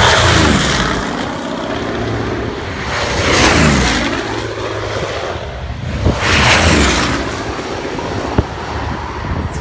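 Goodyear FG-1D Corsair's Pratt & Whitney R-2800 radial engine and propeller at high power on low flybys. Three rushes of engine noise come about three seconds apart, and each drops in pitch as the plane goes past.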